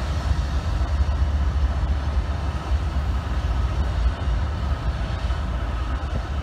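Diesel freight locomotive approaching slowly at the head of a train, a steady low rumble.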